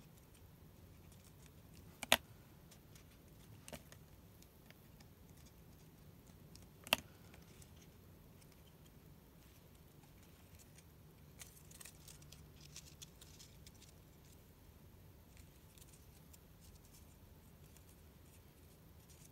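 Faint handling of small glued paper strips, pressed and shaped by hand, with scattered light ticks and two sharp clicks about two and seven seconds in.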